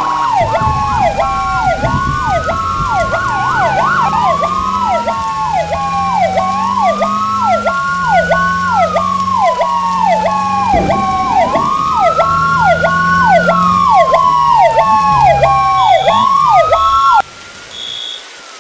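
Fire apparatus sirens sounding together: one in a fast yelp about three times a second, another in a slow wail rising and falling every few seconds, over a low drone that rises and falls beneath. The sirens cut off abruptly near the end.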